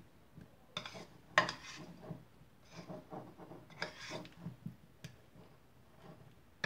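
Metal spoon stirring paneer cubes through a thick curd and spice marinade in a bowl: irregular scrapes and soft clicks of the spoon against the bowl, with one sharper clink about one and a half seconds in.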